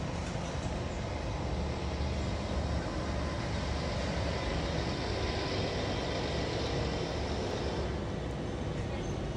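Steady low rumble and hiss of outdoor background noise, a little brighter for a few seconds in the middle.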